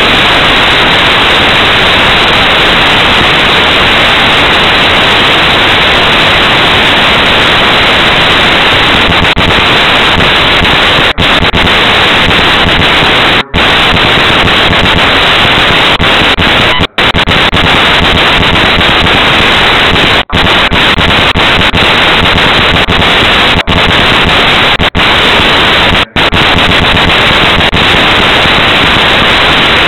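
Loud, steady hiss of static from a faulty, overloaded recording, with no speech audible through it. It drops out for an instant about seven times over the second half.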